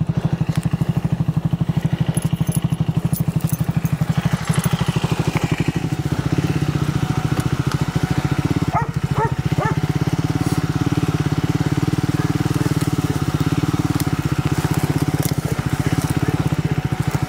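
Triumph Scrambler 400X's single-cylinder engine running steadily as the motorcycle is ridden along, with an even pulsing beat.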